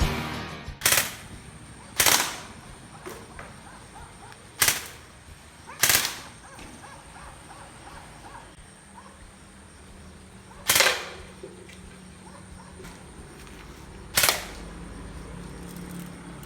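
Airsoft gun fired in six single shots, each a sharp crack with a short ring-out, spaced irregularly: two close together near the start, two more around five and six seconds in, and the last two well apart later on.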